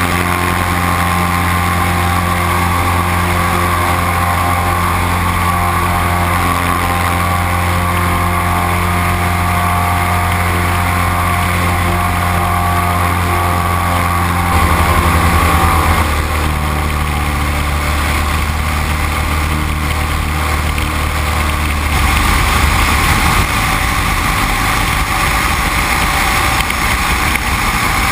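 Great Lakes 2T-1A-2 biplane's four-cylinder Lycoming engine and propeller running at high power in the climb after takeoff, with wind rushing over the outside microphone. The engine note is steady, then steps down in pitch about halfway through and again about three-quarters of the way in.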